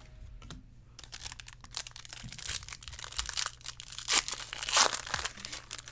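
Foil trading-card pack being torn open and crinkled by hand, in a run of short irregular rips and rustles, loudest about four to five seconds in, over a faint steady low hum.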